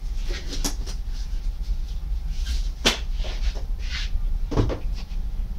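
A few sharp knocks and clicks with some rustling as objects are handled and set down at a workbench, over a steady low hum.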